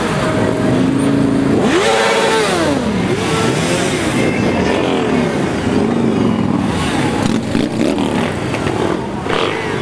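A column of motorcycles riding past at low speed, many engines running together, with riders revving so the engine notes rise and fall one after another; one strong rev swells and drops about two seconds in.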